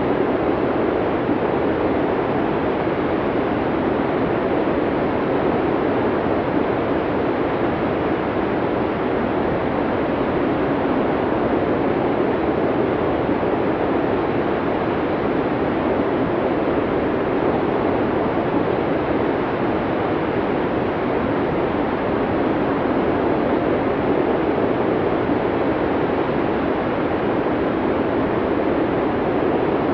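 Snowstorm wind blowing as a steady, unbroken rush of noise with no gusts or breaks.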